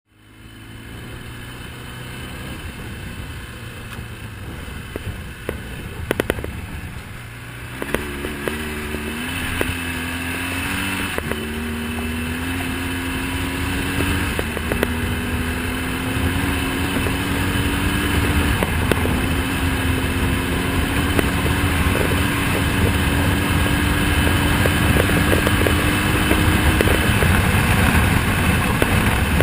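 BMW R1200GS Adventure's boxer-twin engine running low and steady at first, then pulling away. Its note climbs and drops back several times as it is shifted up through the gears, then rises slowly in top gear, with wind and road noise growing as speed builds.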